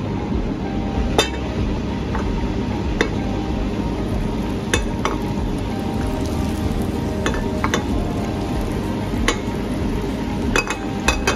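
Food sizzling in a pan as it is stirred, with a stirring utensil clinking against the pan about nine times at irregular intervals.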